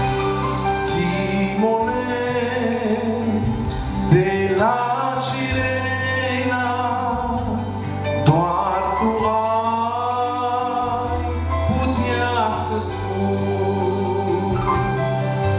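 A man singing a slow Romanian Christian hymn into a microphone, with sustained instrumental accompaniment underneath.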